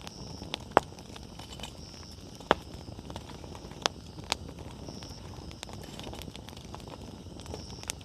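Wood campfire burning with a steady low hiss of flame and sharp, irregular pops of burning firewood, about half a dozen, the loudest about a second in and about two and a half seconds in.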